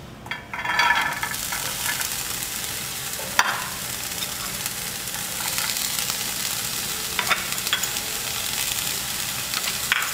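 Chopped asparagus, green chile and spring onion dropped into hot oil in a frying pan: a burst of sizzling about half a second in, settling into a steady frying hiss with a few sharp clicks.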